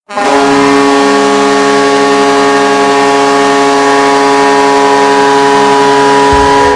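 Vancouver Canucks goal horn sounding one long, steady, loud blast, with reverb. Near the end, the low beat of the goal song comes in under it.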